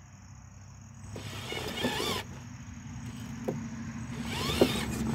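Electric drive motor and gearbox of a Traxxas TRX-4 Blazer RC rock crawler whining as it crawls up a pile of rock, the whine rising in pitch twice as the throttle comes on, with a few sharp ticks.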